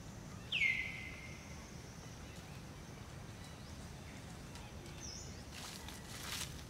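A single bird call about half a second in: a clear whistle that drops in pitch and is then held for about a second, over steady low background noise. Near the end comes a short burst of scratchy rustling as a long-tailed macaque scrapes its hand through dry dirt and dead leaves.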